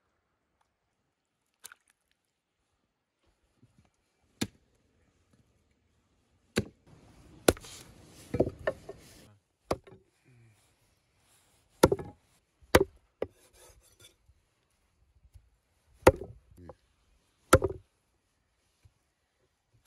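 A cleaver chopping bone-in pieces of cow's head on a wooden chopping block: about a dozen single sharp strokes at uneven intervals, with a few seconds of scraping noise around the middle.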